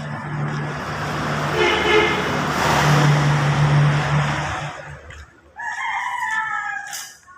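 A motor vehicle passes with a steady engine hum, swelling and fading over about five seconds. A rooster then crows once, about six seconds in.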